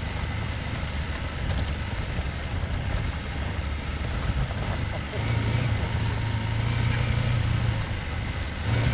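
Husqvarna Norden 901's parallel-twin engine running at low, steady revs, stepping up to a slightly higher, louder note about five seconds in.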